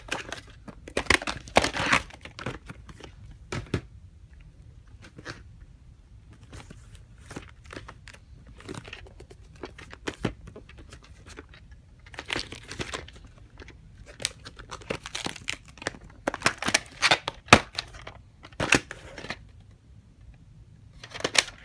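Plastic clamshell VHS cases and cassettes being handled: irregular rustling and scraping of plastic, with several sharp clicks as cases are opened and shut and tapes moved.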